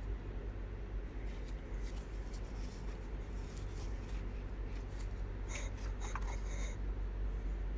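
Faint handling sounds of a metal safety-pin brooch hung with small metal charms: fingers rubbing and light clicks, with a quick run of small clinks late on, over a steady low hum.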